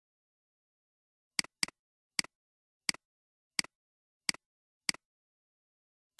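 A string of computer mouse clicks, about one every two-thirds of a second, starting about one and a half seconds in, over complete silence. Each click is a sharp press followed at once by a softer release.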